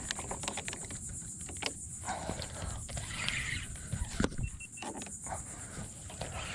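Spinning reel being cranked and the rod handled while fighting a hooked tarpon: irregular clicks and rattles over a steady high hiss.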